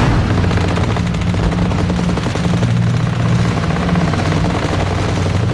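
Sustained, rapid machine-gun fire, many rounds run together into a continuous rattle over a steady low drone. It starts abruptly and does not let up.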